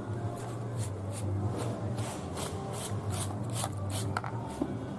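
Knife blade scraping raw cow vagina skin in short, repeated strokes about two a second, shaving off the dark outer skin.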